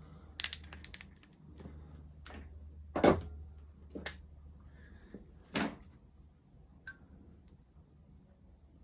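Knocks and clinks of metal machine accessories being handled and set down, about five separate strikes with the loudest about three seconds in, over a faint steady low hum.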